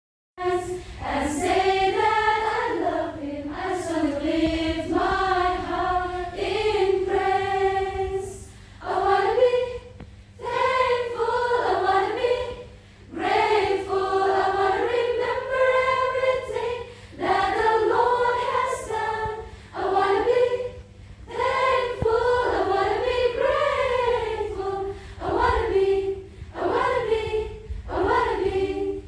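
Group of young women singing together, one melody carried in phrases with short breaks between them.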